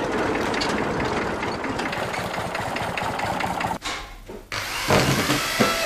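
Workshop tool work at a bench: scraping and rubbing of a tool being worked by hand, loudest in the last second and a half.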